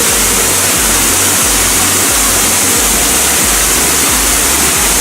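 Waterfall rushing with a loud, steady roar of falling water.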